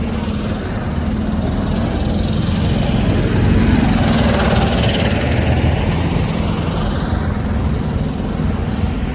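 A motor engine running steadily with a low hum, growing louder in the middle and then easing off.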